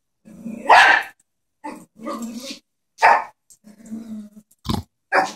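Chihuahua barking in a run of about six short, separate barks at a stuffed toy horse, the barking of a small dog that is wary of the toy.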